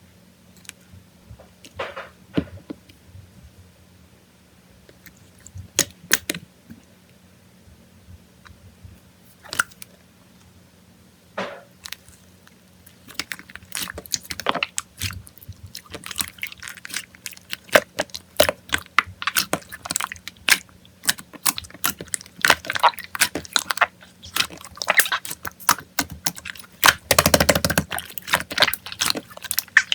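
Slime being squeezed and stretched by hand, giving sticky clicks and small air-pocket pops: a few scattered pops at first, then a dense run of crackling pops through the second half.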